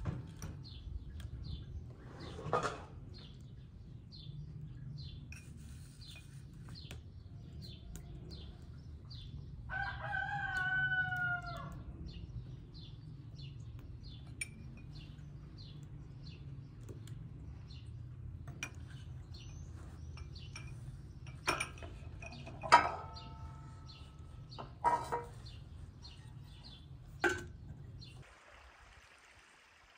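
A rooster crows once, about ten seconds in, over small birds chirping in short repeated high notes. A steady low rumble runs underneath and stops near the end. A few short, sharp sounds come in the last several seconds.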